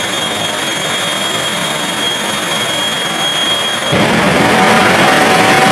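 Jet engine of a jet-powered drag truck running with its exhaust aflame: a steady high whine over a loud rushing noise, which swells louder and rougher about four seconds in as the engine is run up and a cloud of smoke bursts out.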